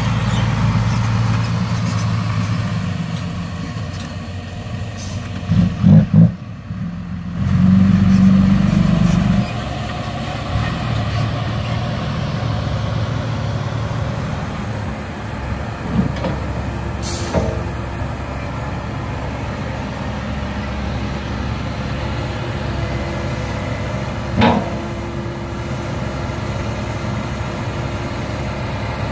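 Heavy diesel engines running: a Komatsu PC160 hydraulic excavator working and a dump truck, with a few short loud bursts about six seconds in and a louder stretch around eight to nine seconds.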